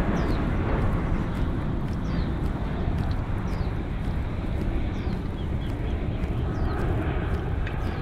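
Outdoor ambience of a steady low rumble, with a bird repeating a short, high, falling chirp about every one and a half seconds.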